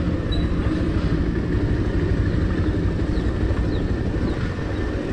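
Motorcycle running steadily while being ridden, its engine drone under a dense low rumble of wind and road noise.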